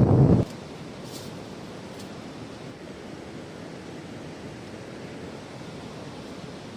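Loud wind buffeting on the microphone that cuts off suddenly about half a second in, then a steady wash of sea surf and wind.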